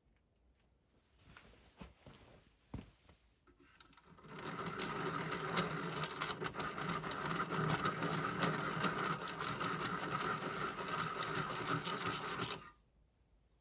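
A small motor-driven machine running steadily with a fast rattle for about eight seconds, starting about four seconds in and stopping abruptly; a few faint clicks come before it.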